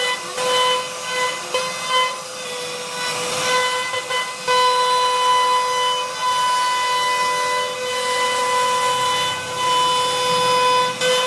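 CNC router spindle running with a steady high whine as its carving bit cuts into a wooden panel. A rasping hiss from the cut swells and eases as the bit moves through the wood.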